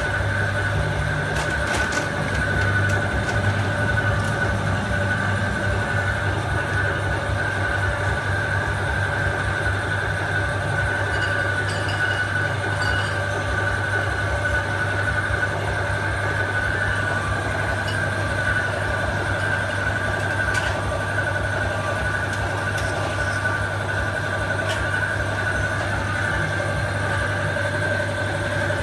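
A steady mechanical drone with a constant low hum that holds unchanged throughout, with a few faint clicks over it.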